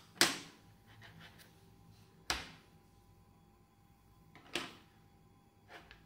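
Hard clacks of Ikki68 Aurora keyboard case parts being set down and handled on a desk. Three sharp knocks about two seconds apart, the first loudest, then a fainter tap near the end.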